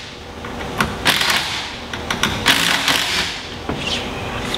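Cordless power driver spinning in two short bursts, about a second in and again past the two-second mark, backing out the bolts that hold a clutch tool on a Polaris RZR engine.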